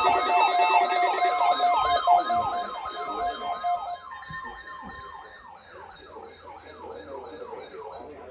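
Weather radio receivers sounding their alert alarms for the Required Weekly Test. Several siren-like rising sweeps repeat a few times a second over steady beeping tones. The steady tones drop out about a second in and again about four seconds in, and the whole sound grows quieter.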